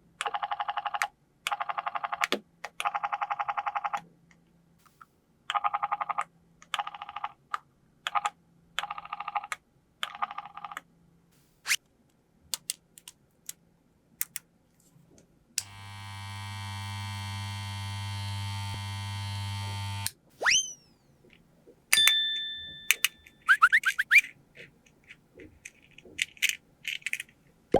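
Electronic sound effects from a battery-powered toy kitchen set, with plastic pieces clicking as they are handled. First come several buzzing bursts, then a steady hum for about four seconds, then short rising chirps and a beep.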